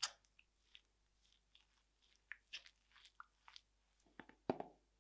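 A metal fork mixing egg and flour into crumbly riced potato for gnocchi dough: a string of soft scrapes and clicks as the fork works through the mixture against the worktop. The loudest strikes come at the very start and about four and a half seconds in.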